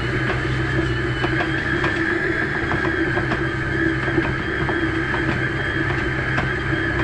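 Stand mixer running on a very low speed, its motor humming steadily as the flat beater works sprinkles through thick cookie dough, with light irregular ticks from the beater and bowl.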